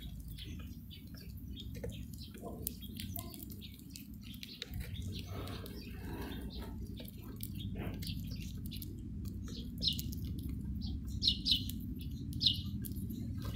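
European goldfinches chirping with short, high calls, several louder ones near the end, over a steady low rumble and many faint small clicks.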